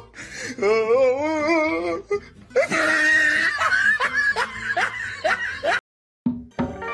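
People laughing, with a long wavering, warbling call about half a second in; the sound cuts off suddenly near the end.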